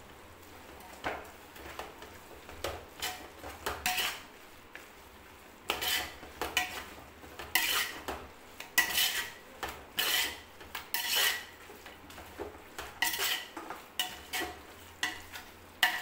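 Metal perforated ladle scraping and knocking against the inside of a large aluminium pot while stirring a soft onion-tomato masala, in irregular strokes that come thicker from about six seconds in.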